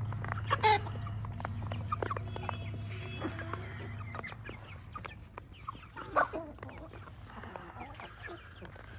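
A flock of chickens clucking and calling as they peck at feed, with two louder calls, one near the start and one about six seconds in. A low steady hum runs underneath and fades out about four seconds in.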